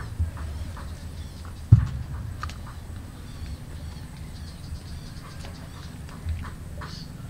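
Outdoor background noise: a steady low rumble with faint short chirps scattered through it, and one sharp thump a little under two seconds in, with smaller knocks near the start and near the end.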